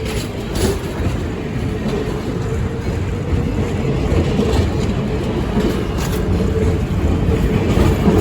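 Train running, a steady low rumble that grows slightly louder, with a few faint clicks.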